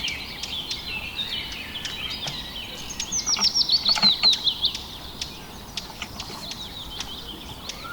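Several small birds chirping and singing, with a quick run of falling chirps about three seconds in.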